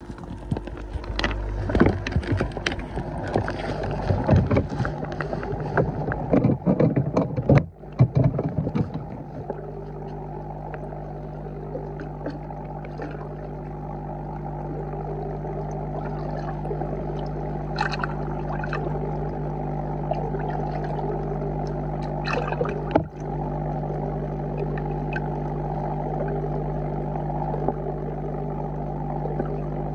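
Pond water sloshing and splashing around a camera held at the surface, then, once it is under, a steady low underwater hum with a few faint clicks.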